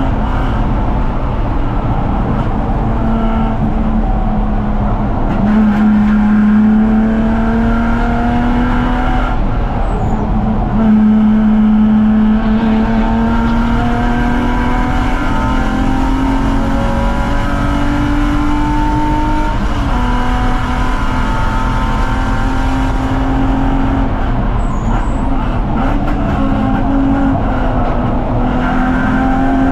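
BMW 330ci's 3.0-litre straight-six at racing load, its pitch climbing and dropping back several times over steady road and wind noise.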